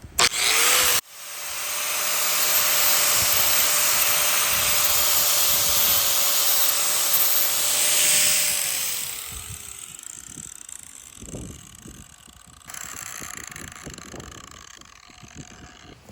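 An electric power tool run through a freshly spliced extension cord to test the repair. A brief blip of its motor comes first, then it runs steadily with a high whine over a loud hiss for about seven seconds. The whine then drops in pitch as the motor winds down after being switched off.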